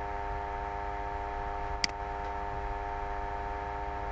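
Steady electrical mains hum on the recording, with a single sharp mouse click a little under two seconds in.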